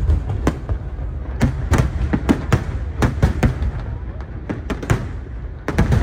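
Fireworks display: aerial shells bursting in quick, irregular succession, several bangs a second over a continuous low rumble, thinning out briefly a little past the middle.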